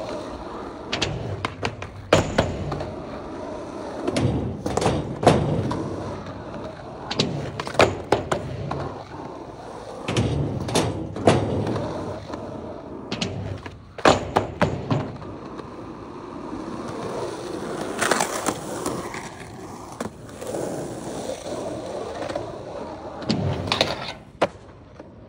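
Skateboard rolling over rough asphalt, with sharp clacks over and over as the board is popped and lands back on the ground.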